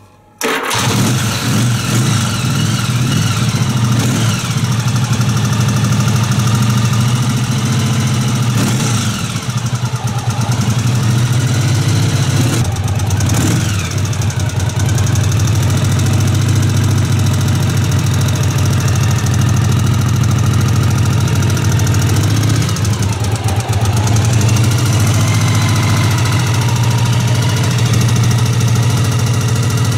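1981 Yamaha XV750 Special's air-cooled V-twin engine firing up suddenly about half a second in, then idling steadily.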